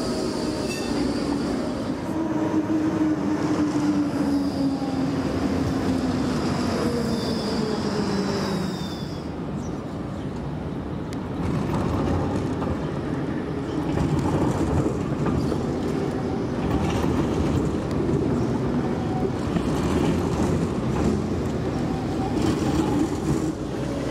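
Electric city trams running on street track: traction-motor whine sliding down in pitch, wheels rumbling and clicking over the rails, and a high wheel squeal that stops about nine seconds in.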